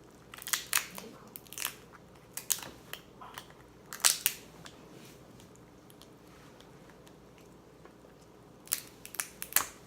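Lobster tail shell being cracked and snapped apart by hand, in bursts of sharp cracks with a pause in the middle.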